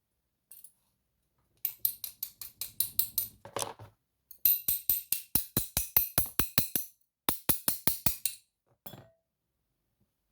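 Rapid metallic tapping on a pin-tumbler lock's housing to knock stuck pin springs out of their chambers, about six sharp, ringing taps a second in three runs with short pauses between.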